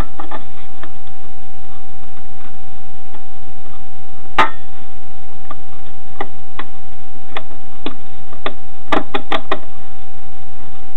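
Screwdriver clicking and scraping against the screws and sheet-metal case of a computer power supply as the screws are worked loose: sporadic sharp clicks, with a quick run of four or five near the end. A constant thin tone and a low hum sit underneath.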